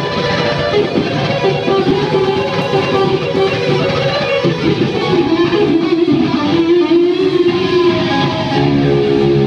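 Unaccompanied distorted electric guitar, a Gibson Firebird through a Randall amp, playing a lead solo. Quick runs of notes give way to bent, wavering held notes, then a held chord near the end.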